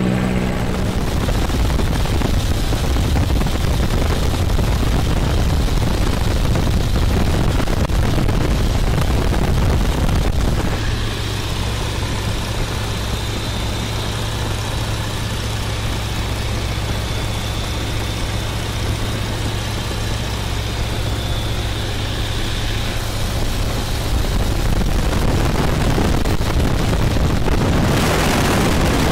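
Loud wind rush over the microphone mixed with the steady drone of the biplane's engine, heard from inside the open cockpit in flight. The rush eases a little for a stretch in the middle and grows louder again near the end.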